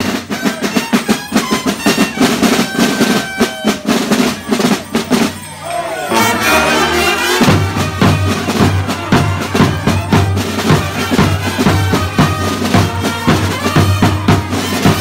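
A carnival band's large bass drums beaten in a fast, steady rhythm. About six seconds in the drumming briefly drops back, then a wind-instrument tune with a steady low drone comes in over the continuing drumbeat.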